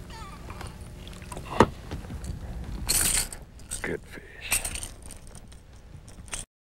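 Water splashing as a hooked bass is brought to the side of the boat and lifted out, with a sharp knock about one and a half seconds in and a louder splash about three seconds in, followed by a few smaller handling noises. The sound cuts out briefly near the end.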